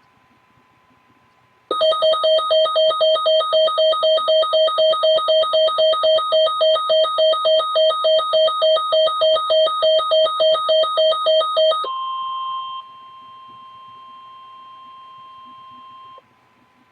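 Emergency Alert System alert tones for a severe thunderstorm warning. A loud electronic alarm warbles about three times a second for roughly ten seconds, then switches to a steady single tone that lasts about four seconds before cutting off.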